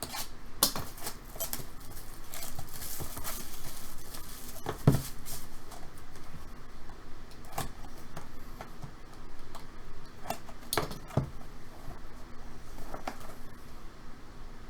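Product packaging being opened and handled by hand: a stretch of tearing and crinkling about two to four seconds in, with scattered sharp clicks and knocks of hard items being moved.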